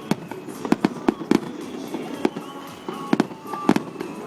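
Aerial fireworks shells bursting in quick, irregular succession: about a dozen sharp bangs in four seconds.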